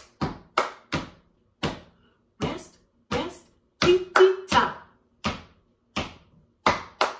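Hand claps and finger snaps beating out rhythm patterns built on 'tita, tita, ta', sharp single strokes at about two a second in uneven groups.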